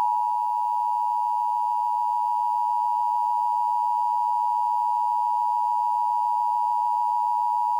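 Emergency Alert System two-tone attention signal, the 853 Hz and 960 Hz tones sounding together as one steady, unchanging tone for about eight seconds, then cutting off abruptly. It is the alert signal that announces an emergency message, here a child abduction emergency (Amber Alert).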